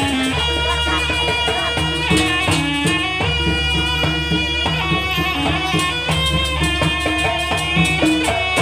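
Jaranan dance accompaniment: East Javanese folk music with drums under a continuous melody line, playing steadily.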